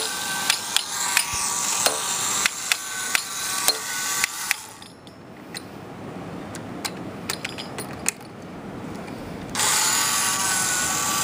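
Battery-powered toy Rhythm Train running, its motor and gears whirring steadily while its rhythm mechanism clicks out a beat. About four and a half seconds in, the whir drops away to occasional clicks while the train is handled. The steady whir comes back suddenly near the end.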